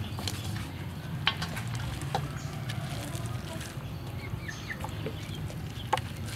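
Hands rubbing marinade into a whole raw chicken in a steel bowl: soft wet squelching with a few sharp clicks, over a steady low hum.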